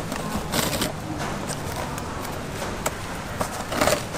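Scissors snipping red plastic strapping over a cardboard-covered woven plastic sack, with crinkling of the cardboard and sack: several short crackly rustles, the loudest near the end.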